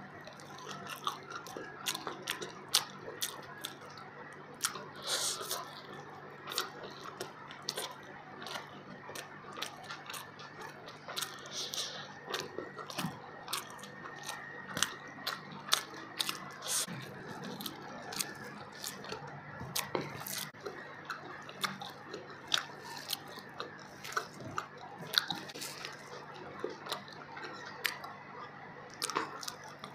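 Close-up eating sounds from a person eating fish biryani and fried pieces by hand: chewing and biting, with frequent short wet mouth clicks and small crunches, over a faint steady hum.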